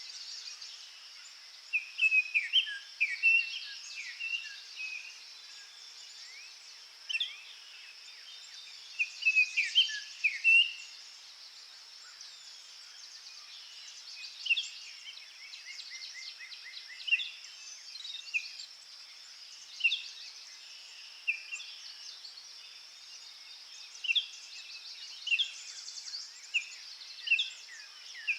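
Small garden songbirds calling with short, sharp chirps throughout, in loud clusters about 2 and 10 seconds in, and a quick rattling trill about 16 seconds in, over a steady high-pitched hiss.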